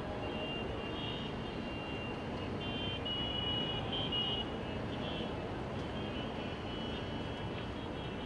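Distant city traffic din, with short, high-pitched vehicle horn beeps sounding on and off throughout.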